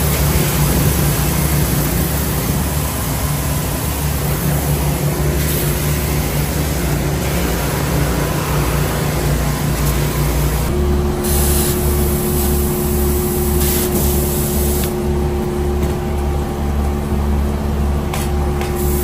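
Gas-engine pressure washer running, with the loud hiss of its high-pressure spray hitting wet concrete. About eleven seconds in the engine note changes and a steady hum joins it as the lance sprays down into the grease trap.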